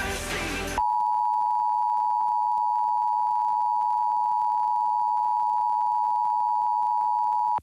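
Emergency Alert System attention signal: the steady two-tone alert tone, cutting in over music about a second in and stopping abruptly near the end. It heralds the spoken statewide Required Monthly Test message.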